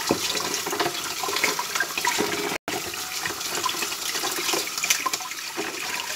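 Water splashing and running as plastic combs are rinsed by hand in a tub of cool water, with many small irregular splashes. The sound drops out for an instant a little past halfway.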